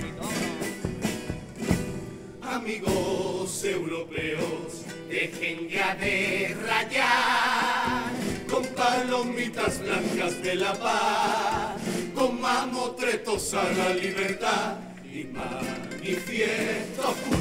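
Cádiz carnival comparsa chorus, a group of voices singing together over Spanish guitar accompaniment.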